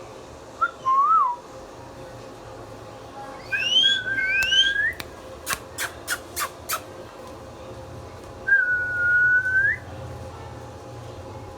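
Indian ringneck parrot whistling: a short whistle about a second in, a pair of rising whistles around four seconds in, then five sharp clicks in quick succession, and a longer level whistle near the end.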